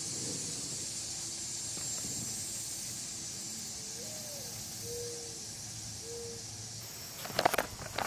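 Steady high hiss of open-air ambience, with a few faint, short, low-pitched calls around the middle. A quick cluster of clicks and knocks comes near the end.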